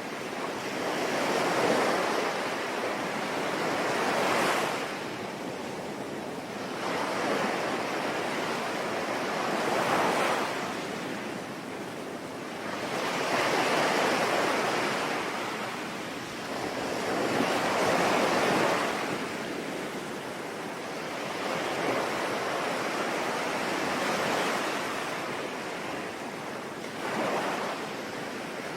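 Sea waves breaking and washing on a shore, surging and falling back every few seconds, over a steady hiss of rain.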